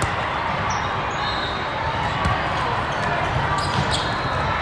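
Volleyballs striking and bouncing on a hard court floor, several separate thumps over the steady din of a large sports hall full of people.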